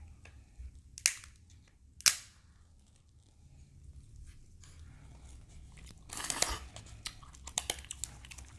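Grilled king crab leg shells being cracked open: two sharp cracks about one and two seconds in, then a stretch of crunching and small snaps of shell near the end.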